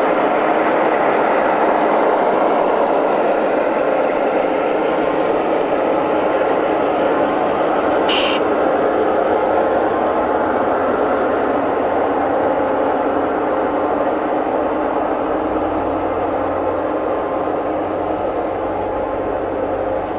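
G-scale model freight train rolling past on garden-railroad track: a steady run of wheels on rails as the cars go by, with one brief high squeak about eight seconds in. The sound eases slightly toward the end.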